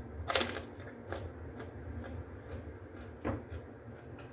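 Someone eating raw bell pepper: a crunchy bite about half a second in and another a little after three seconds, with small mouth and chewing clicks between, over a low steady hum.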